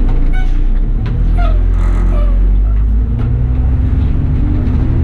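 A bus engine running with a loud, low, steady rumble inside the moving bus.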